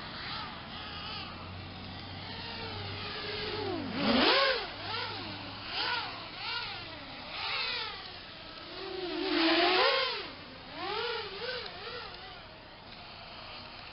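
Brushless motors of an RG210 FPV quadcopter whining in flight, their pitch swooping up and down again and again with each burst of throttle, loudest about four seconds in and again near ten seconds.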